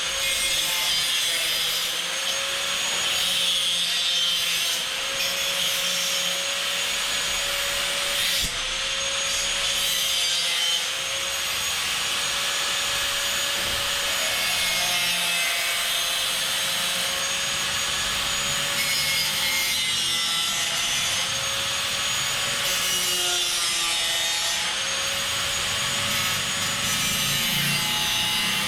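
Power tool, likely an angle grinder, cutting galvanized metal ceiling framing. Its pitch sags and recovers every second or two as the disc bites into the metal.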